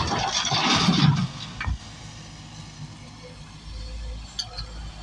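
Sany SY225 excavator working quarry stone: a loud rush of rock tumbling and scraping for about the first second, then the machine's engine running low with a knock or two.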